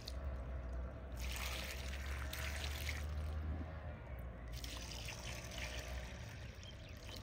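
Wood fire being lit in a clay chulha and catching, with a hissing rush of noise that comes and goes in patches.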